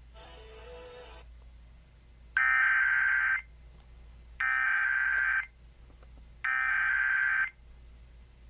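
Emergency Alert System SAME header: three identical bursts of warbling digital data tones, each about a second long and about a second apart, announcing the next weather warning. A fainter tone sounds in the first second.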